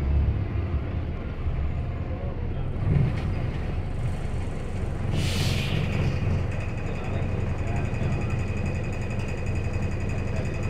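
Cabin sound of a London city bus under way: steady engine and road rumble, with a short hiss of compressed air about five seconds in, typical of the bus's air brakes, followed by a faint steady high whine.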